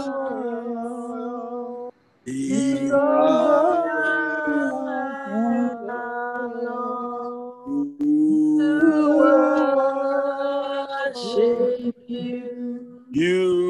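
Voices singing a slow worship song over a video-call connection, in long held notes with brief pauses between phrases.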